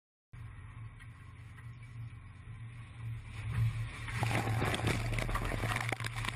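Seawater crashing and spraying over a boat's deck as a wave breaks aboard, over the steady low drone of the boat's engine; the splashing swells and is loudest from about halfway through.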